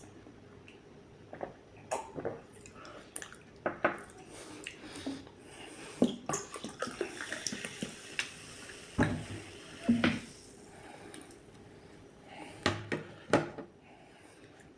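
Close-miked eating of a homemade patty burger: chewing and irregular wet mouth clicks and smacks.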